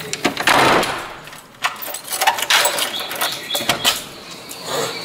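Wooden door being unlocked and opened: a key and bunch of keys clicking and rattling in the lock and the knob turning, with a string of short clicks and knocks.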